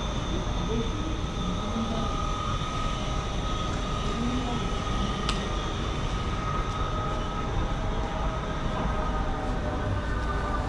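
Subway train running: a steady rumble with a steady high whine over it, and one sharp click about five seconds in.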